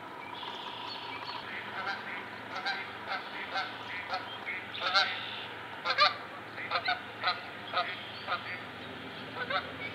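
Canada geese honking, short calls repeated irregularly and overlapping, the loudest about five and six seconds in.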